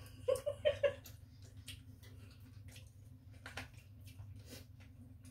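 Eating by hand at a table: scattered small clicks and taps of food and plates, with chewing. Near the start, a brief voice sound in three quick pulses.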